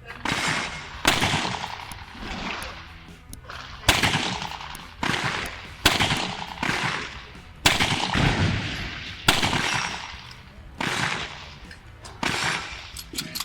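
Five gunshots from handloaded rounds fired over a ballistic chronograph, spaced about two seconds apart, each with a ringing tail. Background music runs underneath.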